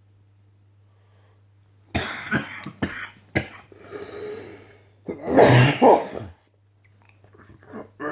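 A man sneezing hard: a run of sharp explosive bursts about two seconds in, a breathy intake, then one long, very loud voiced sneeze about five seconds in.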